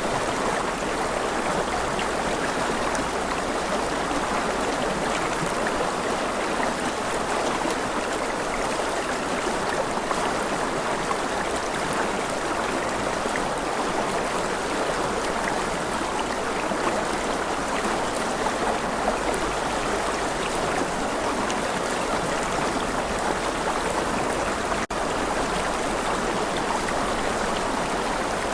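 Steady rushing and gurgling of a flowing stream, unbroken, with a momentary dropout near the end.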